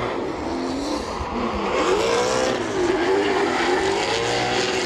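Two drift cars sliding in tandem, a Toyota Supra leading and a home-built car chasing, their engines revving up and down as the throttle is worked through the slide. The rev changes are heard over a steady noise of spinning, smoking tyres.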